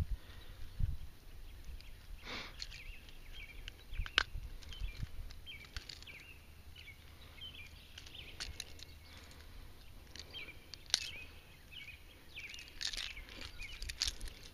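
Small birds chirping repeatedly in the background, short high chirps scattered through the whole stretch, over a low rumble with scattered clicks and knocks from close by.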